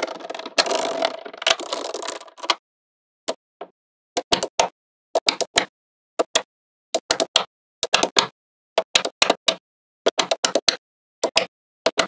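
Small neodymium magnet balls clattering as a chain of them is laid down onto a layer of balls for the first two and a half seconds. After a short pause come repeated quick clusters of sharp clicks as small blocks of magnet balls are snapped into place on the structure.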